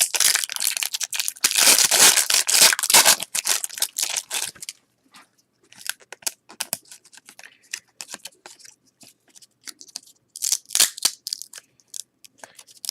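A basketball card pack wrapper being torn open and crinkled, a dense crackle for the first four seconds or so. Then softer scattered rustles and clicks of cards being handled, with another short crinkle of the wrapper near the end.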